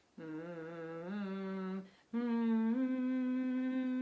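A person humming sustained notes as a breathing and sound-healing exercise, trying out pitches to find one that resonates in the chest. A low hum holds for nearly two seconds, then after a brief pause for breath a higher note is held, stepping up slightly partway through.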